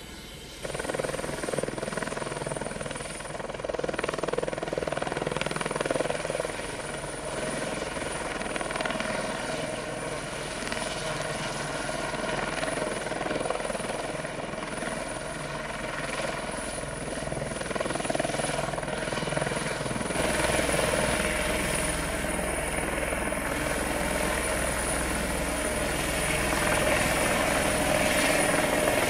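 Eurocopter EC120B Colibri helicopter lifting off into a hover, with the steady high whine of its Turbomeca Arrius 2F turboshaft over the beat of the main rotor and the fenestron tail rotor. The sound gets louder less than a second in and again a few seconds in, and grows fuller and heavier about twenty seconds in.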